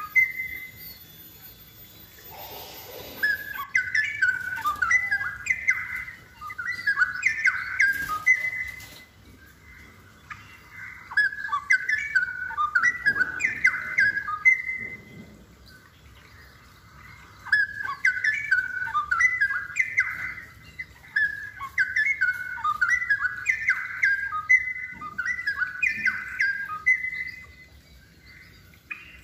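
Straw-headed bulbul (cucak rowo) singing: rapid, rich warbled phrases in three long bouts with short pauses between.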